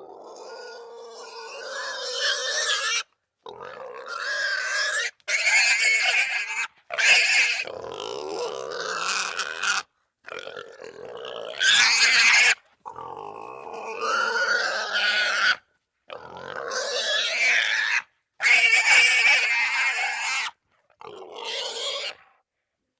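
Russian wild boar squealing: a run of about nine separate shrill squeals, each one to three seconds long, divided by brief silent gaps.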